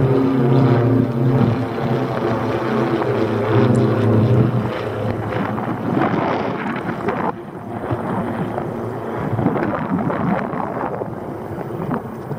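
Propeller aircraft droning overhead for the first five seconds or so, a steady pitched hum, then wind buffeting the microphone for the rest.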